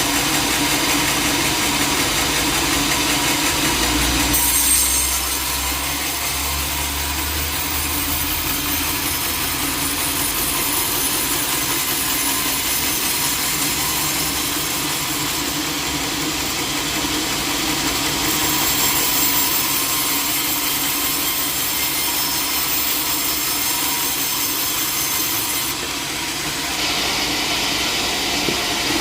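Sawmill saw running and cutting through a teak log: a machine hum, then from about four seconds in the steady, hissing noise of the blade in the wood, which eases a little near the end.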